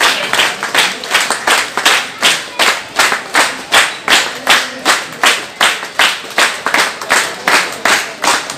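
A group of people clapping together in a steady rhythm, about three claps a second.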